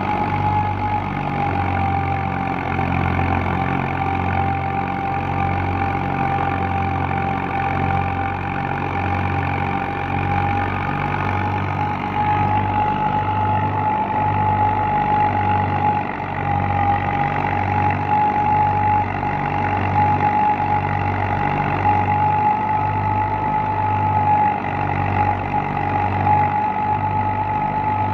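Ghazi 65 HP tractor's diesel engine running steadily under load, driving a wheat thresher: a low throb that pulses regularly, under a steady, slightly wavering whine.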